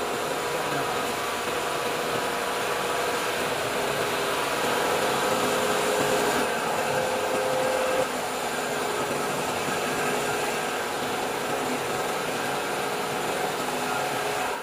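ACME three-chuck tube laser cutting machine running while it cuts a steel U-channel: a steady rushing noise with a few steady humming tones, a little louder from about four to eight seconds in.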